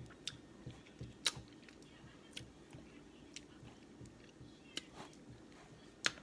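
Close-miked mouth sounds of someone chewing: scattered soft clicks and smacks, a few a second apart, the sharpest about a second in and near the end.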